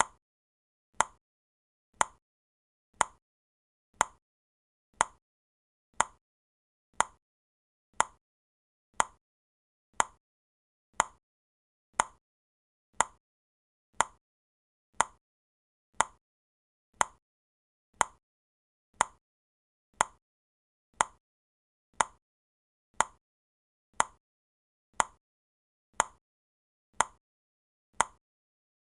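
Countdown timer's clock tick, one sharp tick every second, evenly spaced with silence between.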